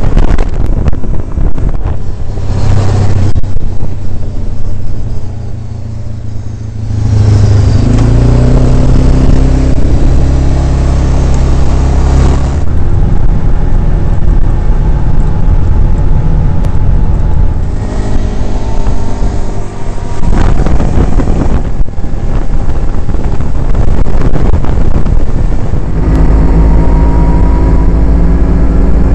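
Quad bike (ATV) engine running as it is ridden, revving up and easing off several times. Stretches of heavy wind rush on the microphone come and go over it.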